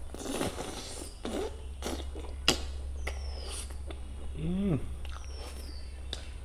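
Close-up mouth sounds of a person eating fatty black pork curry by hand: wet chewing, lip smacks and finger-licking, with a sharp smack about two and a half seconds in as the loudest. A short hummed "mm" comes a little after the middle.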